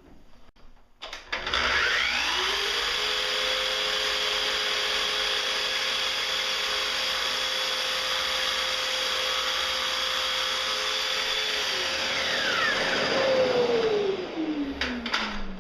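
Miter saw cutting a miter in wooden cabinet-door stock. The motor spins up with a rising whine about a second in, runs steadily, then winds down with a falling pitch near the end.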